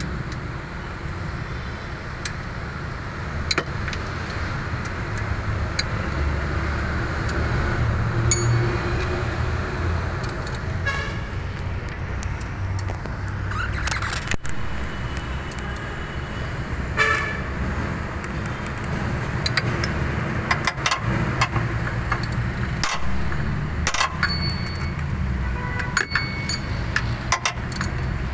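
Metal hand tools clicking and clinking against metal during engine-bay work, with quick runs of clicks, over a steady low rumble of vehicles.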